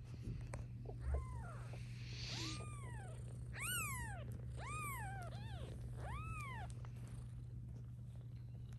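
Newborn kittens mewing: a series of about six high, thin cries, each rising and then falling in pitch, the loudest about three and a half seconds in. A soft low thump about a second in.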